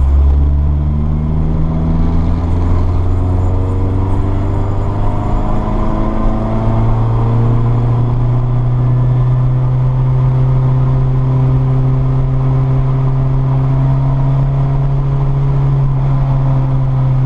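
Honda CRX's B20 VTEC four-cylinder engine, breathing through a 2.5-inch cold air intake with an open air filter, heard from inside the cabin as it pulls in fourth gear. Its pitch climbs gradually as the revs rise from about 2,500 to about 4,100 rpm, with a step up in pitch about six seconds in.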